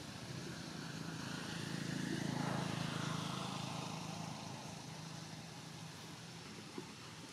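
A motor vehicle passing by: engine and road noise swell over about two seconds with a slightly falling pitch as it goes past, then fade away slowly.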